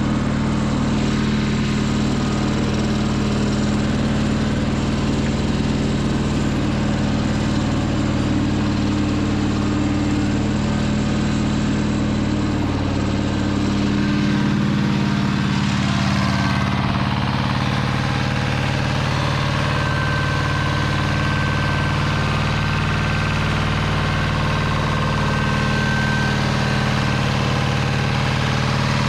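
Two-cylinder engine of a 30 hp Pasquali 425 compact 4x4 tractor running at a steady speed while pulling a plough.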